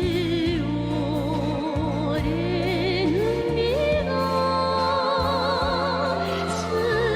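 North Korean pop song: a singer holding long notes with wide vibrato, sliding upward in the middle, over an accompaniment with a steady bass line.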